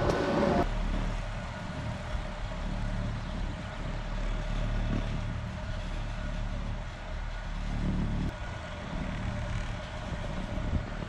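Chairlift running: a steady low mechanical hum heard from the moving chair, louder and fuller for about the first half-second.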